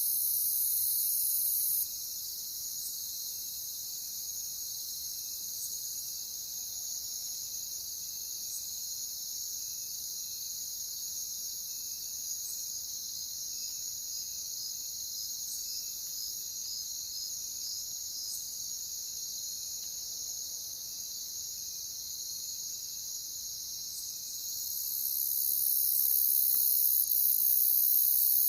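Crickets chirping in a dense, steady high-pitched chorus. A higher, louder layer of the chorus cuts off about two seconds in and swells back in near the end.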